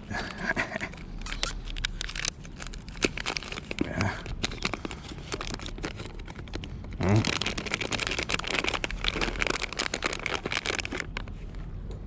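Plastic food wrapper crinkling and crackling as it is rummaged for and torn open, with heavier rustling from about seven seconds in.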